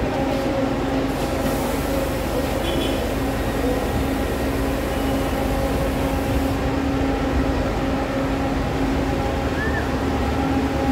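Minibuses idling at a bus station platform: a steady engine hum with a low droning tone that does not change.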